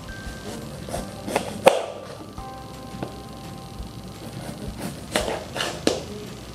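Kitchen knife cutting through a raw beet and striking a plastic cutting board: three sharp strokes a second or two in, the middle-late one loudest, then four more in quick succession about five seconds in. Soft background music runs underneath.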